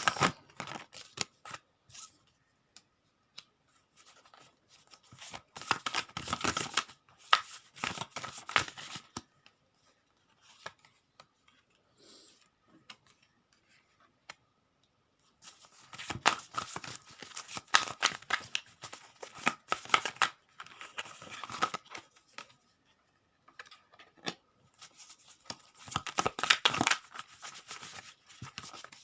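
Tarot cards being shuffled in the hands, a dense riffling and clicking of card stock in three main bouts with short quiet gaps between.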